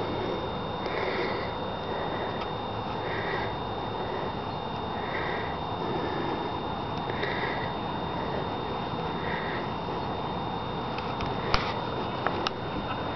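Steady outdoor noise with a faint pulsing sound about once a second, and a few sharp clicks near the end.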